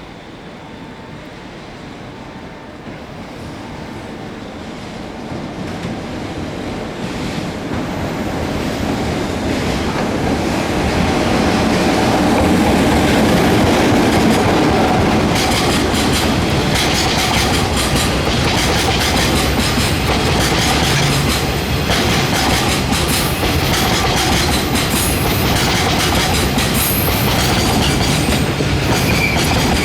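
Freight train hauled by an EF66 electric locomotive approaching and passing, followed by its Chiki 5500 flat wagons: the rumble grows louder over the first dozen seconds, then holds steady with clickety-clack of the wagon wheels over rail joints. A few brief high squeals come near the end.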